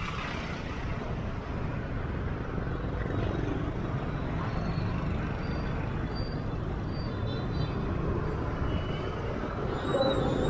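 Riding a motor scooter through city traffic: a steady low rumble of engines and road noise, with a few faint, brief high tones in the second half.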